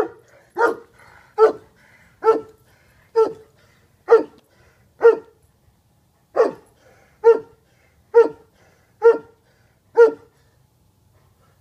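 Saint Bernard barking, single barks at about one a second, a dozen in all, with a short gap after the sixth. The barking stops about ten seconds in.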